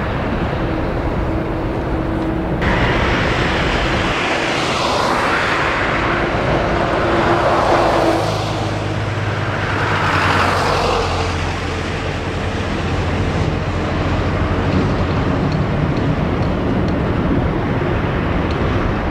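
Boeing 787-9 airliner's jet engines running at taxi power as it rolls onto the runway: a steady rushing hum with slow sweeping swells, and a low steady drone from about eight seconds in.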